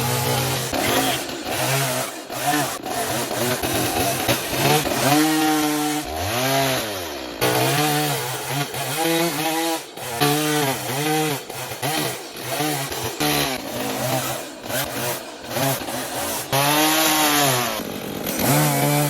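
Petrol chainsaw carving wood, its engine revved up and dropped back to idle over and over, with a steady idle between the cuts.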